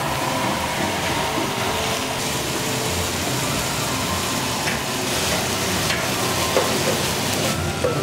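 Diced chicken sizzling steadily in a hot frying pan, with the odd scrape of a spatula as it is stirred.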